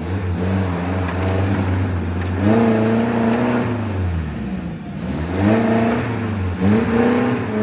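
Suzuki Jimny off-road jeep's engine revving hard under load as it climbs a steep muddy slope with a wheel down in a rut. The revs rise and fall in several surges, dipping about halfway through and then climbing again.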